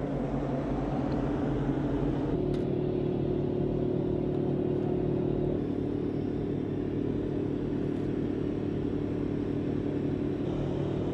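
Engine running steadily with a deep hum, a further steady pitched tone joining a little over two seconds in.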